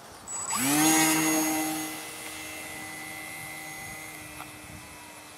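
Brushless electric motor and propeller of a small foam RC plane (Turnigy 2830, 1100 kV, turning a 9x5 prop) spinning up sharply about half a second in at a hand launch. It settles into a steady high whine, loudest just after it starts, then quieter as the plane climbs away.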